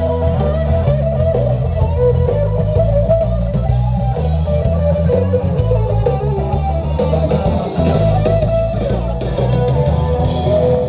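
Live band playing a rock song, with guitar over bass guitar, amplified through PA speakers.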